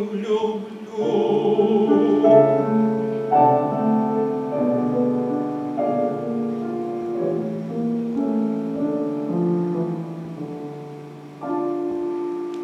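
A man's last sung note, held with vibrato, fades in the first couple of seconds. Piano then plays a slow closing passage of sustained chords and melody, ending on a final chord about 11 seconds in that rings away.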